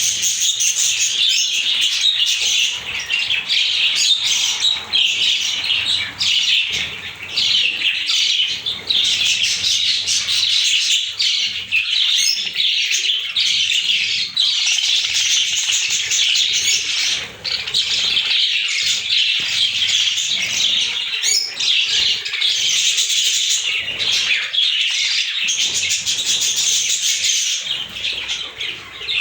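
A flock of budgerigars chattering together: a dense, continuous high-pitched twittering with no pauses.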